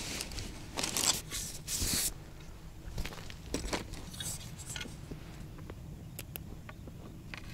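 Rustling and scraping of a fabric fishing-rod holdall as a rod is pulled out of it, loudest in a few bursts over the first two seconds, with a few more short scrapes a little later, then only faint clicks of handling.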